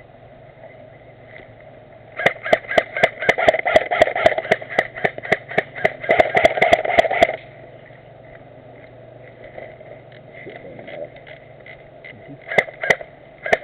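Airsoft gun firing a rapid string of shots, several a second, for about five seconds, then a shorter burst near the end.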